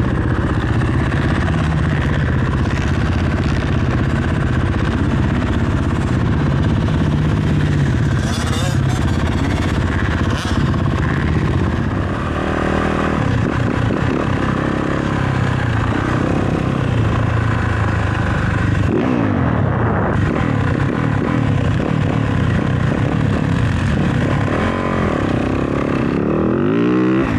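Motocross dirt bike engine running hard on the track, its pitch rising and falling over and over as the rider goes on and off the throttle and through the gears.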